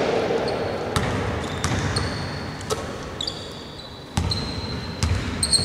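Basketball bouncing on a hardwood court with short high squeaks of sneakers on the floor. A few sharp thuds, the loudest a little after four seconds in.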